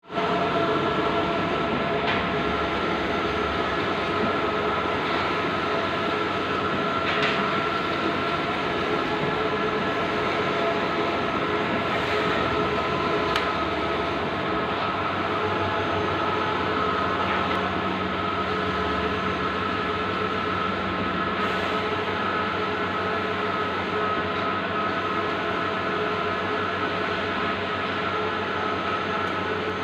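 Bluewin large-format outdoor banner printer running: a steady, loud mechanical whir with a constant hum and a few faint clicks.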